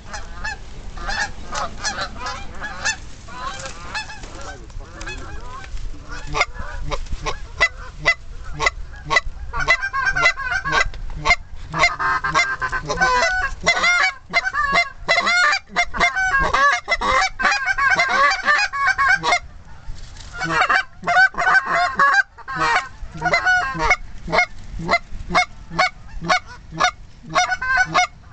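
A flock of geese honking as they fly in, many short honks overlapping. The honking grows busiest in the middle and thins toward the end.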